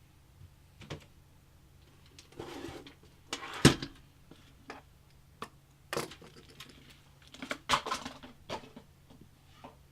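Irregular clicks, knocks and rattles of hard plastic and metal parts being handled while a computer case is assembled, the loudest a sharp knock about four seconds in and a cluster of clatter near the end.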